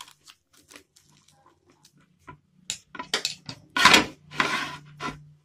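Crisp dosa crackling and crunching as it is cut with a knife and broken apart by hand on a plate. A few faint clicks come first, then a run of sharp crackles about three seconds in, with the longest and loudest crunches near the middle of that run.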